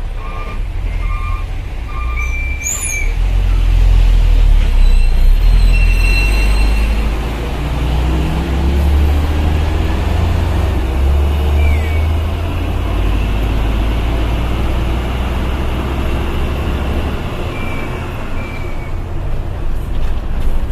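Hino Ranger dump truck's diesel engine running under load, a heavy low rumble that grows louder a few seconds in and rises in pitch as the truck accelerates, easing off near the end.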